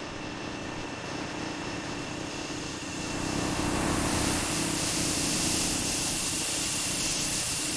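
Woodworking factory machinery running steadily, with a hum and a high whine. A loud hiss swells in about three seconds in and holds.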